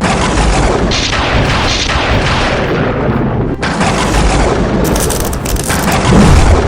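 Cinematic action sound effects: a loud, dense barrage of booms and blast-like rumbles that starts abruptly and swells louder near the end.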